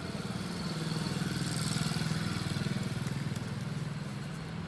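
A small vehicle engine running with a steady pulsing note, growing louder to about two seconds in and then fading.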